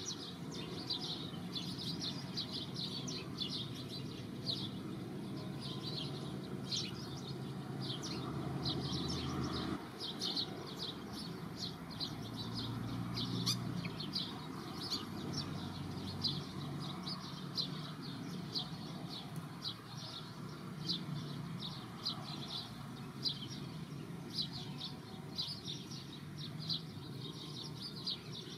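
Small birds chirping, short high chirps repeated a few times a second without pause, over a low steady background rumble.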